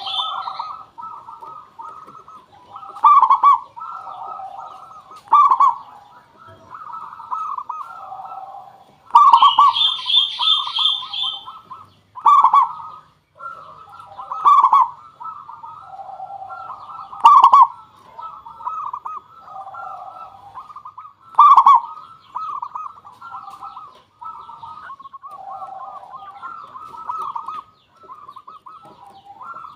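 Zebra doves cooing in a near-continuous run of rapid, rolling coos, with a louder phrase every two to four seconds: a perkutut lure call for drawing wild doves. About nine seconds in, a higher, rapidly pulsed bird call joins for about two seconds.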